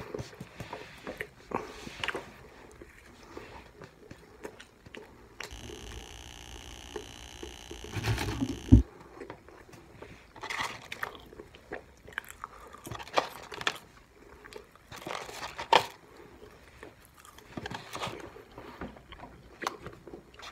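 Close-up chewing and biting of McDonald's fast food: wet mouth clicks, smacks and soft crunches. In the middle a steady hiss-like noise runs for about three seconds, then stops.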